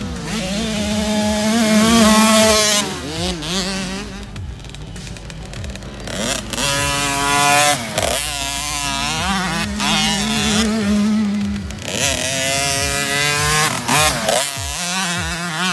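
Husqvarna TC 50 mini motocross bike's small single-cylinder two-stroke engine revving hard under throttle. Its pitch climbs and drops back several times as the rider accelerates and shifts.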